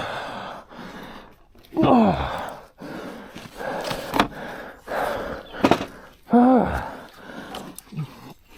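A man grunting and groaning with effort, two long groans falling in pitch, amid scattered knocks and clunks as he struggles with a dropped motorcycle.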